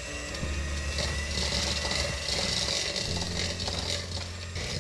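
Electric hand mixer running on low, its beaters creaming softened butter and sugar in a plastic bowl: a steady motor whine with the rub and scrape of the beaters through the mixture.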